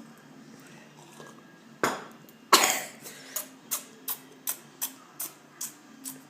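A child coughs twice, the second cough louder, then a quick regular series of about eight short kissing smacks follows, roughly three a second: kisses made with the lips on the forehead, the Turkish way of stopping a child's cough.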